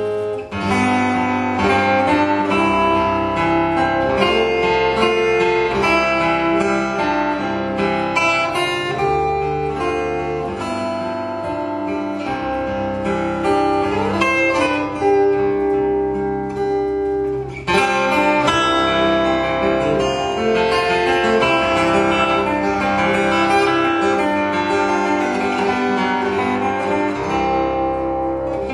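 Solo acoustic guitar played fingerstyle: a continuous melodic piece with plucked notes ringing over a bass line.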